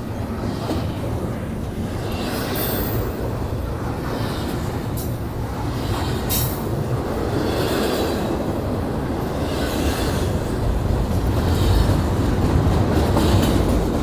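Union Pacific intermodal double-stack freight cars rolling past: a steady rumble of steel wheels on the rails, with a few sharp clacks and a higher hiss that swells and fades in rhythm as each car's wheelsets go by, growing a little louder in the second half.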